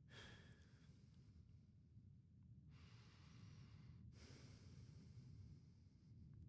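Near silence: faint room tone, a low rumble with a soft hiss that changes abruptly a few times.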